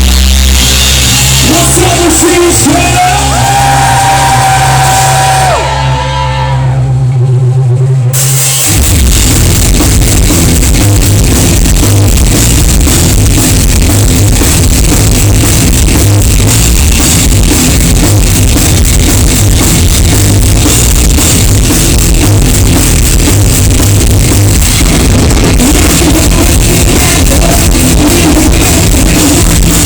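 Rock band playing live and loud: a sustained low drone with a gliding tone over it opens, then drums and the full band crash in about eight seconds in and drive on with singing.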